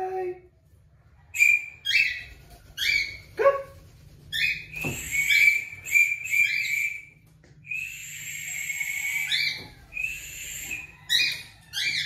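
Cockatiel calling over and over: a run of short, high calls that drop in pitch, and one longer, harsh call about eight seconds in.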